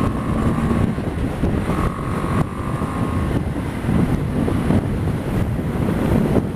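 Wind rushing over a helmet microphone, over the BMW G 310 GS's single-cylinder engine running as the motorcycle travels at road speed. A steady high whine comes and goes in the first half.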